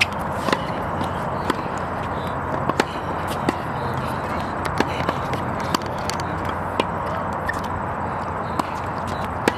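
Tennis ball struck by rackets and bouncing on a hard court in a practice rally: sharp pops every second or two, over a steady background hiss.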